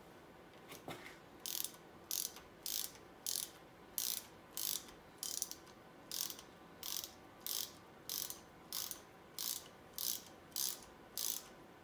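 Ratchet wrench clicking in an even rhythm, about one and a half strokes a second, as it backs out a 9/16 oil pump bolt that has already been broken loose on a cast-iron Lincoln MEL engine block. There is a faint knock about a second in.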